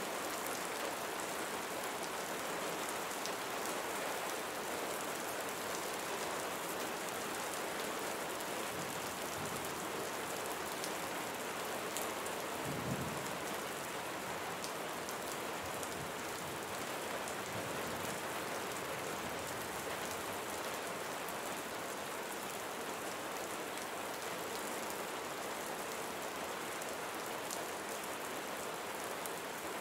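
Steady rain falling on foliage and ground, an even, continuous patter. Partway through there is a brief low rumble.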